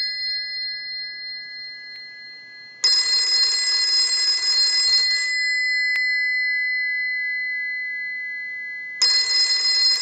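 The twin brass gongs of a monophone rotary-dial telephone's bell, rung by a test analyzer's ring signal. A ring burst of about two and a half seconds comes about three seconds in, the gongs keep sounding and slowly fade after it, and another burst starts near the end. The bell rings properly, a sign that its fault has been repaired.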